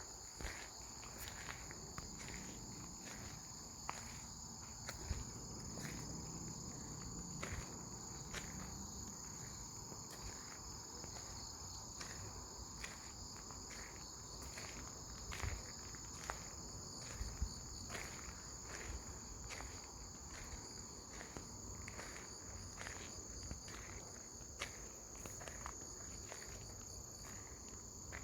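Steady high-pitched chirring of insects, with scattered light clicks.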